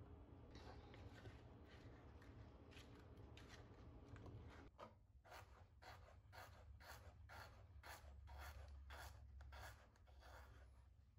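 A kitchen knife slicing radishes on a plastic cutting board: from about halfway through, a steady run of short clean cuts, between two and three a second, each blade stroke tapping the board.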